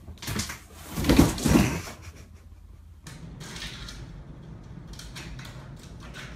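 Tall cardboard box scraping and clattering against a door, with two heavy thumps about a second in. After that comes a steady low room noise with faint clicks.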